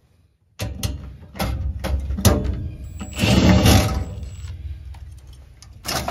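Cordless drill-driver running in bursts as it backs out the screws holding a gas furnace's inducer motor assembly, with sharp metallic clicks and rattles from the sheet-metal housing. It starts suddenly about half a second in and is busiest about three to four seconds in.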